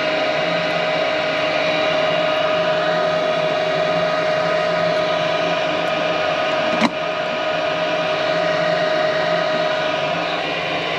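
Gas furnace's inducer motor running with a steady hum and whine, and a single sharp click about seven seconds in. The furnace is showing a pressure switch open fault, which the technician takes for a bad control board.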